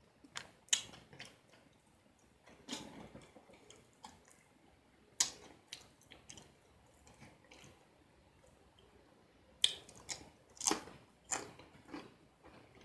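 A person chewing crunchy fried food close to the microphone: scattered crisp crunches and mouth sounds with quiet gaps between, coming thickest in the last few seconds.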